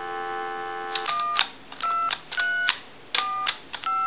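A steady telephone dial tone for about a second, then the touch-tone keypad of a repaired Mickey Mouse telephone sending DTMF tones: a short two-note beep with a click for each key pressed, about five in a row, as each key is checked for a working tone.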